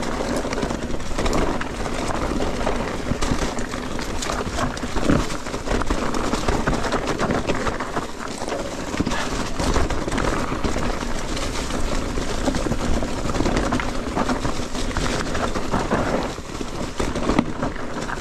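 Mountain bike riding down a rutted dirt trail: steady tyre and trail noise with the bike clattering over bumps.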